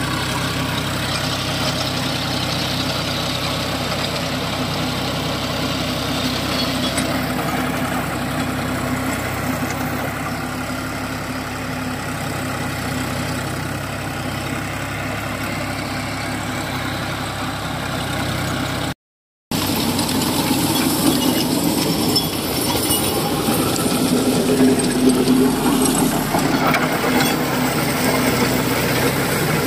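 John Deere tractor's diesel engine running steadily under load while the rear-mounted GreenSystem rotavator churns through dry soil. About two-thirds of the way through, the sound drops out for half a second, then comes back a little louder and rougher.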